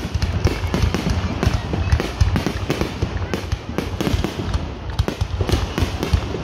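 Fireworks finale: a rapid, unbroken barrage of booming and crackling bursts, several a second.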